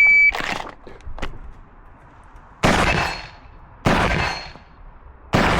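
A shot timer's electronic start beep, then four 12-gauge shotgun shots spaced one to two seconds apart as a competitor shoots an IPSC stage.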